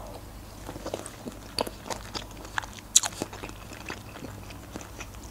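Close-miked chewing of a mouthful of food, with short wet mouth clicks scattered through. The sharpest click comes about three seconds in.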